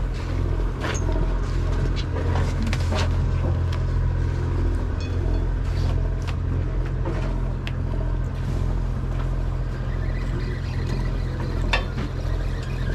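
Party fishing boat's engine running steadily as a low hum, with a few sharp clicks and knocks, the loudest about three quarters of the way through.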